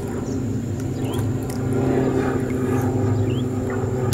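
Steady low drone of an engine, slowly growing a little louder, with a few short high chirps over it.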